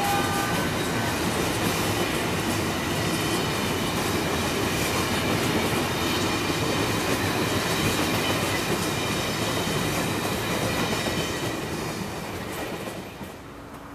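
Amtrak passenger cars rolling past at speed, their wheels clacking over the rail joints with a thin high whine from the wheels. The sound falls away sharply near the end as the last car goes by.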